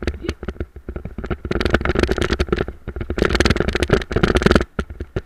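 Wheeled dog-training cart and its handlebar-mounted camera rattling and clattering over a rough dirt trail: a dense run of rapid knocks over a low rumble, loudest about two seconds in and again from about three to four and a half seconds, easing near the end.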